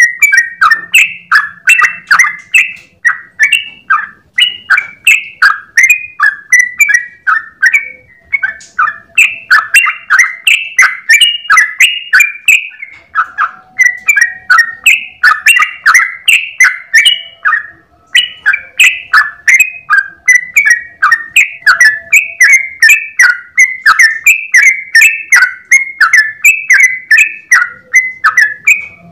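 Yellow-vented bulbul (trucukan) singing a long, unbroken run of short chirpy notes, about three a second, with only a few brief breaks.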